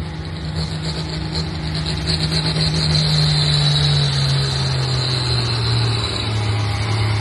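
Modified farm pulling tractor's diesel engine running flat out as it pulls the weight-transfer sled, belching black smoke. Its pitch sinks slowly as the load builds and pulls the engine down. A steady high whine rides over it.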